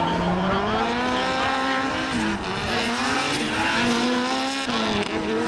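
Two drift cars' engines at high revs, the pitch rising and falling as the throttle is worked through the slide, over tyres squealing and spinning in the drift.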